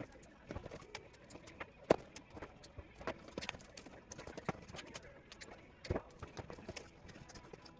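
Scattered, irregular clicks and knocks from stripping scrap copper wire for bare bright copper, with louder knocks about two seconds in and about six seconds in.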